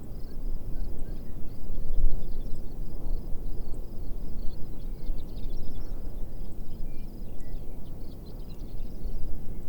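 Wind blowing in uneven gusts, a deep rumbling, with many small birds twittering faintly and continuously in the background.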